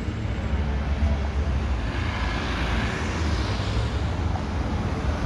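A vehicle passing on the street, its noise swelling and then fading in the middle, over a steady low rumble.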